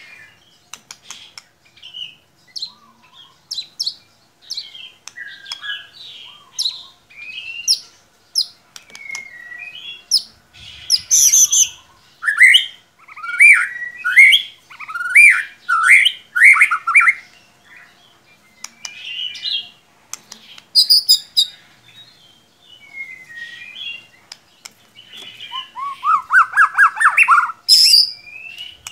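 White-rumped shama singing a varied song of whistled phrases with short pauses between them: a run of loud sweeping whistles in the middle, and a rising trill near the end.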